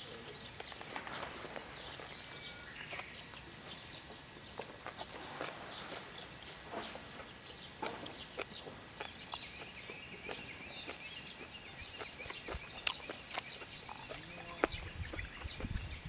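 Chicken yakitori cooking over charcoal on a small shichirin grill, with scattered crackles and pops, and birds calling in the background. A low rumble comes in near the end.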